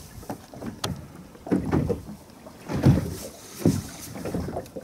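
Choppy lagoon water slapping against a small boat's hull in irregular low splashes, with wind buffeting the microphone and one sharp tick about a second in.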